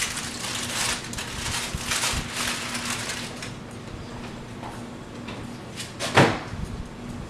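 Kitchen utensil scraping and knocking in a mixing bowl of crappie fillets and mashed potatoes: a run of short scraping strokes about two a second, then quieter handling and one louder clunk about six seconds in, over a faint steady hum.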